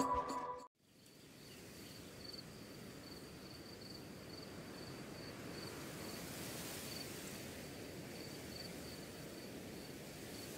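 Music stops abruptly under a second in. Open-grassland ambience then fades in: a steady outdoor hiss with an insect chirping high in short pulses, a few times a second.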